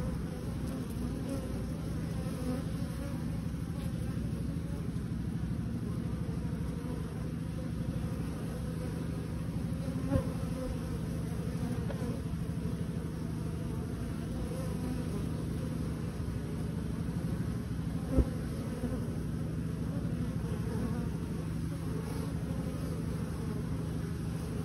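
Honeybees buzzing in a steady low hum. Two sharp knocks come through it, about ten and eighteen seconds in.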